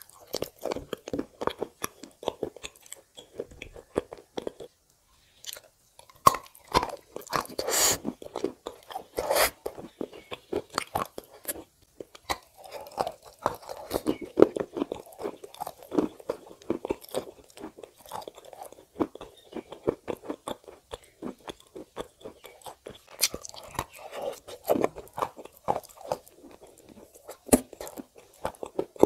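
Close-miked biting and chewing of a white block of edible clay dipped in clay paste: dense crisp crunches throughout, with a brief pause about five seconds in.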